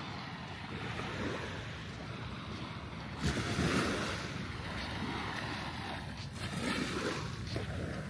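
Small waves breaking and washing up on a sandy shore, with wind rumbling on the microphone. One wash swells louder about three seconds in.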